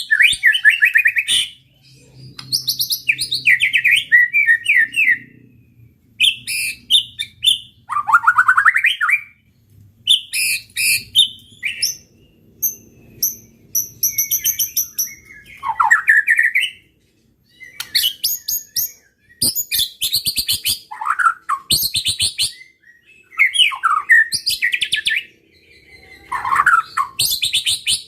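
White-rumped shama (murai batu) singing a loud, varied song. Phrase follows phrase with short pauses: rapid trills, quick chattering notes and whistles that slide downward.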